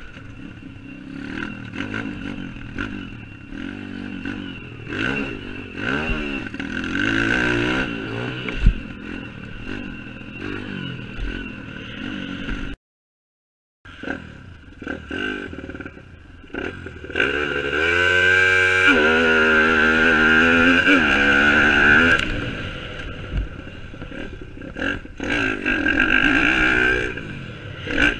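YCF pit bike's engine revving up and down as it is ridden hard, shifting through the gears on a dirt track, heard from a helmet-mounted camera. The sound cuts out for about a second midway, then the engine climbs to a high rev and holds it for a few seconds.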